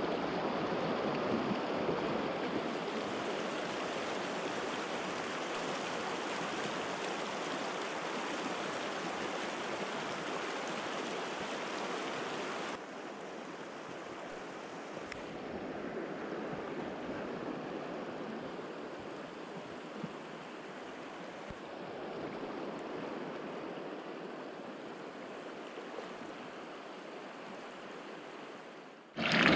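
Steady rush of a mountain river's current flowing over rocks, with no pitch to it. About 13 seconds in it drops abruptly to a quieter rush that rises and falls slightly.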